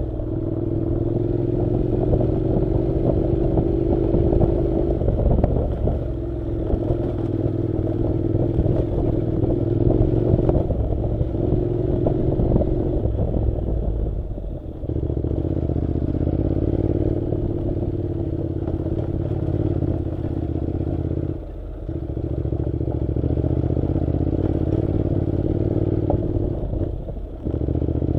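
Honda NC700 motorcycle's 670 cc parallel-twin engine running steadily while riding a dirt road, with clatter from the rough surface. The engine note drops briefly a few times, about halfway, about three-quarters of the way and near the end, as the throttle is eased.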